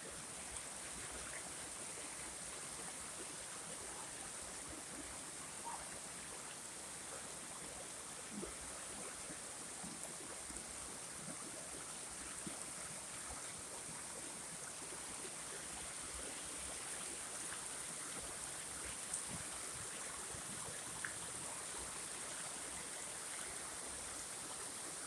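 Steady rush of a flowing stream, with a few faint clicks.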